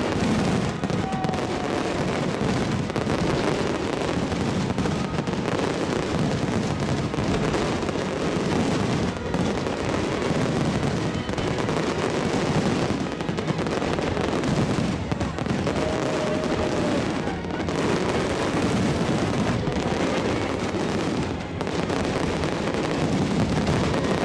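Large fireworks display: shells bursting in rapid, continuous bangs and crackles, close together with no pause.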